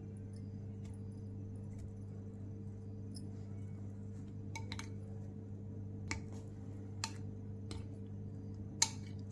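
Metal spoon clinking a few times against a glass bowl while turning fried urad-dal vadas in whipped curd, the sharpest clink near the end, over a steady low hum.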